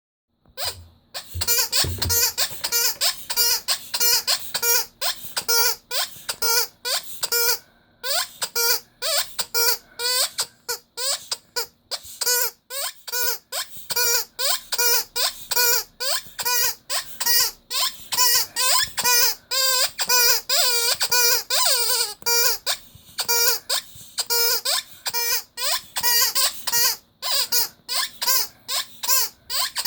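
Rubber squeaky toy squeezed over and over, a rapid run of short squeaks that wobble in pitch, with a few brief pauses.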